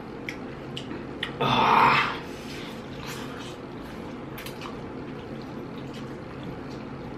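A person slurping noodles: one loud, wet slurp lasting about half a second, then quieter eating with a few faint clicks of a fork.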